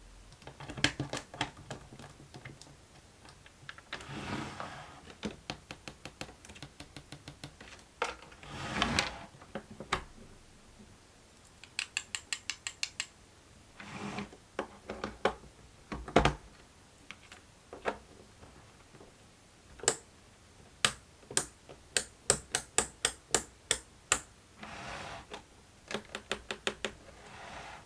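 A plastic fidget board being played with: bursts of sharp clicks and taps, quick runs of small even clicks, and a few brief sliding or rubbing sounds.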